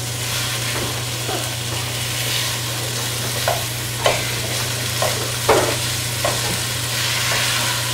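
Beef and vegetables sizzling as they fry in a stainless steel pot on a gas range, while a metal spoon scrapes and knocks against the pot about half a dozen times as the meat is stirred and broken up. A steady low hum runs underneath.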